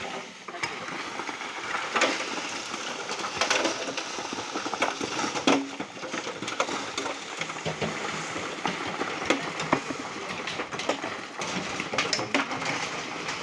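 Manual concrete work: irregular metal scraping and clanking of tools against concrete and metal, with no steady machine running.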